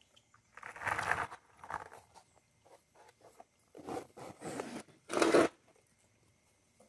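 Scraping and rubbing noises in several short bouts, the loudest about five seconds in.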